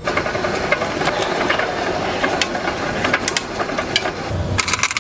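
A machine mechanism running with a fast, continuous clatter of small clicks.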